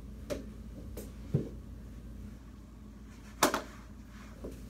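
Mini hockey sticks and ball clacking during knee hockey play: about five short sharp clacks, the loudest about three and a half seconds in.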